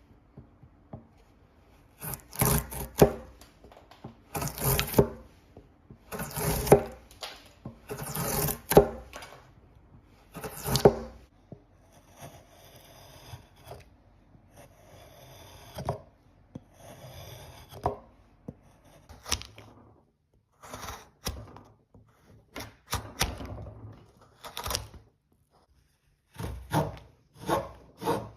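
Wood being worked by hand: loud scraping strokes about every two seconds, then fainter rubbing, and short sharp knocks and clicks near the end.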